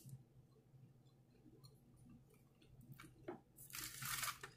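Soft chewing with faint mouth clicks. About three and a half seconds in, a loud crackling rustle starts as hands handle fried chicken and a biscuit on a paper-lined tray.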